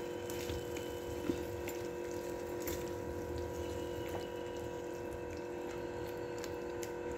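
Chicken curry cooking in its own juices in a nonstick pan, stirred with a silicone spatula: wet bubbling and soft scraping with faint clicks. A steady hum of several constant tones runs underneath.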